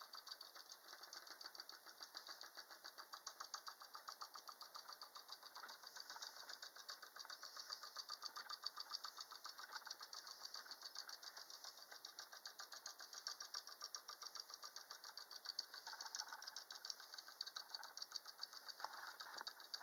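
Carved wooden woodpecker toy working its way down its pole on a wire spring, its beak tapping the pole in a rapid, even pecking rhythm of several taps a second.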